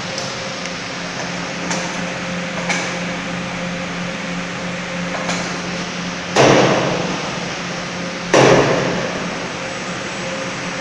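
LS 1200S carton paper grooving machine running with a steady hum and a few light clicks, broken by two loud bursts of noise about two seconds apart, each dying away over about a second.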